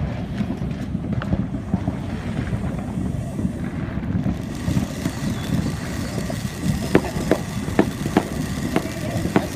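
Skateboard wheels rolling over pavement: a steady low rumble, with a quick run of sharp clicks in the last few seconds.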